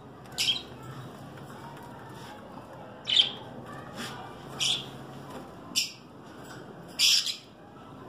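Small caged parrots giving about six short, high-pitched squawking calls at irregular intervals, with a longer call about seven seconds in.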